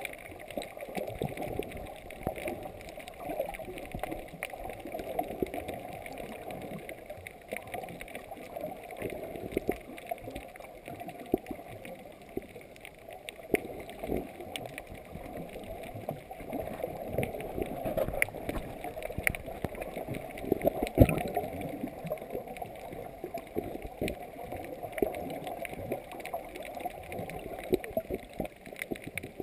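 Muffled underwater sound of sea water moving and sloshing, heard through a submerged camera housing, with scattered clicks and crackles and a few louder knocks.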